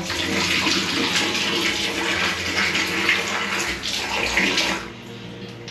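Water running from a tap into a bathroom sink, splashing as hands scoop it up to wash a face; the running water stops near the end.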